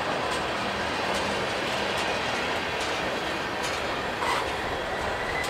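Union Pacific train rolling slowly past at about 5 mph: a steady rumble of the cars, with wheels clicking over the rails about once a second. A faint high wheel squeal comes in near the end.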